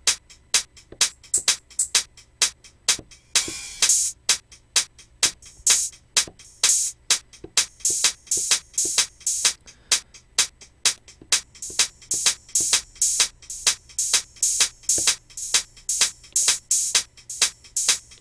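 Soloed hi-hat loop from a Native Instruments Maschine drum group: quick, evenly spaced sharp hat ticks, with a longer open hi-hat wash about three and a half seconds in.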